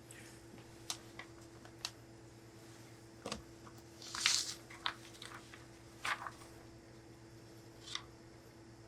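A coat being worked on a tailor's table: a few short rustles and light taps from the cloth and tools, the loudest a brief rustle about four seconds in, over a steady low hum.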